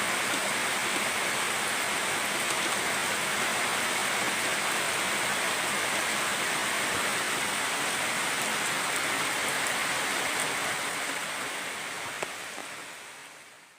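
Heavy tropical rain falling in a steady, dense downpour, fading out near the end.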